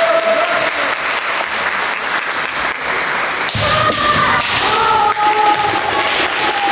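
Clapping and crowd noise in a sports hall. From about three and a half seconds in, kendo fighters let out long, held kiai shouts during the bout, mixed with sharp knocks.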